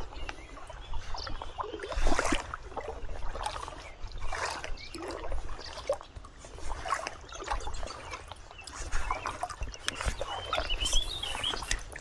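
Shallow river water splashing and sloshing in irregular bursts around a wading angler's legs, with a brief bird chirp near the end.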